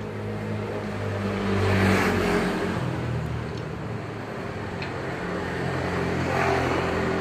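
Street traffic passing close by. Engines hum low throughout, with a swell as a vehicle passes about two seconds in and another near the end as a motor scooter rides by.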